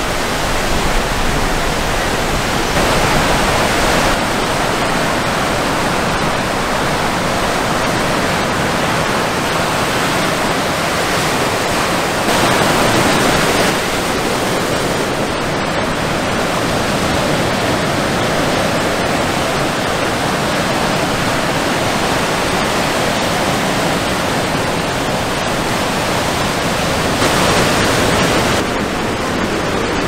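Ocean surf breaking: a loud, steady wash of rushing water that swells louder for a second or two about three seconds in, around twelve seconds in, and near the end.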